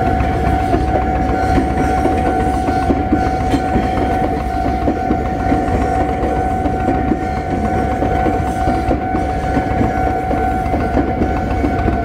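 Level-crossing warning bell ringing steadily while a Tobu 200 series limited express electric train runs through the crossing, its wheels rumbling and clattering on the rails.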